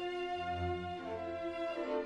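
Background music of bowed strings, violin over cello, playing slow held notes.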